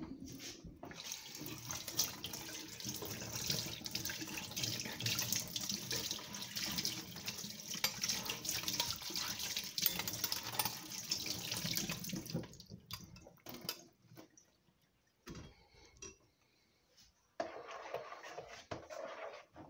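Blended fruit juice being poured through a strainer into a container: a steady splashing pour that stops about twelve seconds in, followed by a few short, quieter sounds.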